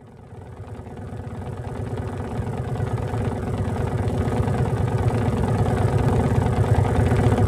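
Low, buzzy electronic synth drone with a fast fluttering texture, fading in gradually over several seconds.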